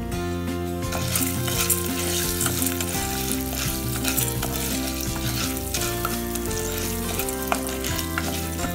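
Popcorn kernels sizzling in hot oil in a nonstick pot while a wooden spoon stirs them, with background music underneath. The sizzling picks up about a second in.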